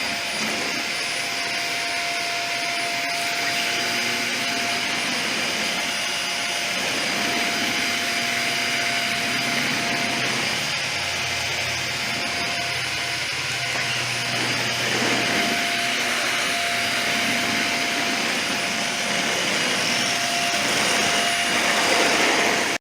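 Dyson vacuum cleaner running with a steady high motor whine as it sucks up the oily Krudz 502 cleaner slurry from a concrete floor. It is switched off suddenly at the end.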